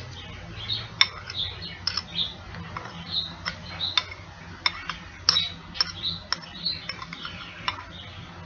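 Utensil clicking and scraping against a plate or bowl while eating, an irregular run of sharp clicks. Short high chirps come between the clicks.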